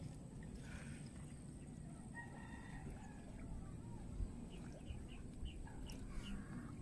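A rooster crowing faintly, one drawn-out call about two seconds in, followed by a run of short high chirps, over a steady low rumble.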